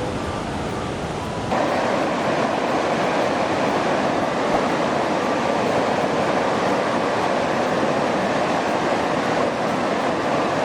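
Mountain stream water rushing steadily, becoming louder about a second and a half in.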